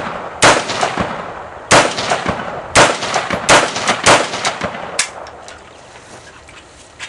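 AR-15 rifle firing semi-automatic shots from a 100-round Beta C-Mag drum: five loud shots at uneven intervals over about four seconds, each with a ringing echo. After that only a few faint clicks.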